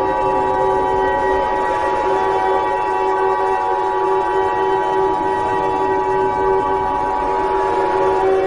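Emergency Alert System attention signal: a steady two-tone beep held for about eight seconds that cuts off just before the end. It sounds over a steady drone of several other held tones, like a siren or horn chord.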